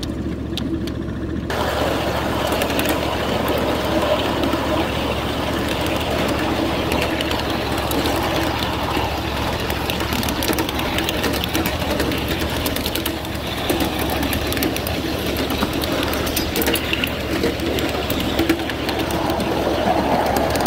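A 7.5-inch gauge ride-on train running along the track: the wheels click irregularly over the rail joints over a steady low hum from the diesel-outline locomotive pulling it.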